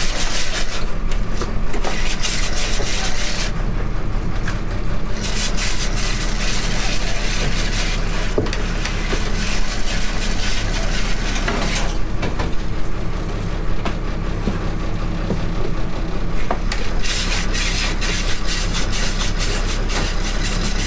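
Crab workboat's engine running steadily, with scraping, clicking and rattling from crabs and wire crab pots being handled on deck; the scraping and hiss come and go.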